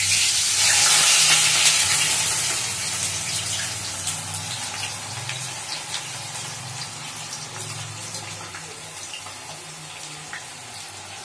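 Sliced bitter gourd (karela) frying in hot mustard oil in a steel kadhai. A loud sizzle peaks in the first couple of seconds as the slices go in, then fades steadily, with scattered pops and crackles.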